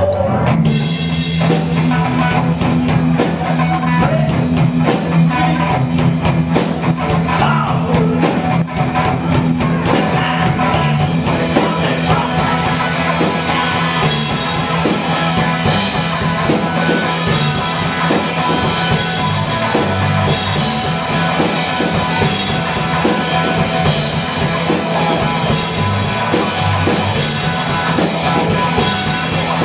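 Live rock band playing loud through amplifiers: electric guitar, electric bass and a drum kit together in a steady driving groove.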